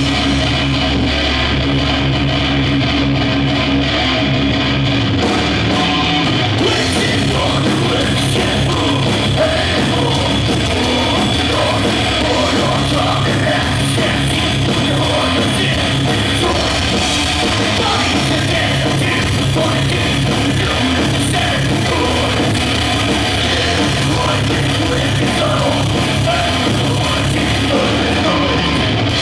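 A death/thrash metal band playing loud at soundcheck: heavily distorted electric guitars, with the full band and cymbals coming in about six seconds in.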